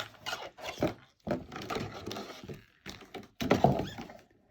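Irregular clicks, taps and knocks of small plastic toy pieces and packaging being handled, with some rustling between them.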